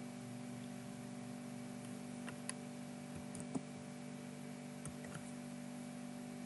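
A few faint, scattered computer keyboard key presses and mouse clicks, typing a short bit of text, over a steady low electrical hum.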